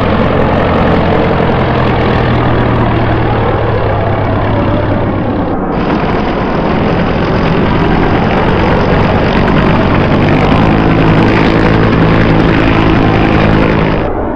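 Propeller airplane engine droning steadily, laid on as a sound effect. The recording changes abruptly about six seconds in, a deeper engine tone grows stronger in the last few seconds, and the sound cuts off suddenly just before the end.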